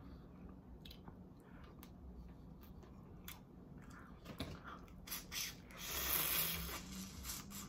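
Close-up eating sounds of someone chewing tiger prawn: scattered small wet clicks and smacks, with a louder, longer stretch of wet, noisy mouth sound about six seconds in.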